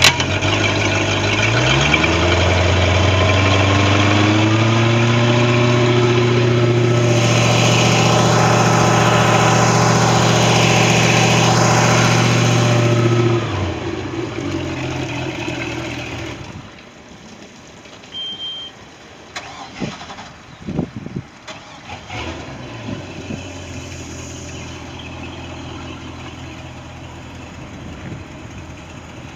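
Tahoe boat's engine, running again after a no-start fault traced to a breaker, revs up from about two seconds in and holds a steady high speed, then drops back to a low idle near the middle. After that it goes much quieter, with a few short knocks.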